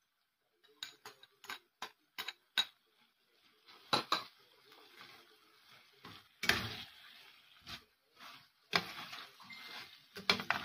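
Metal spoon stirring in a stainless steel pan of beef strips and onion: about five light clinks in the first few seconds, then louder clanks and scrapes against the pan about four, six and a half, nine and ten seconds in.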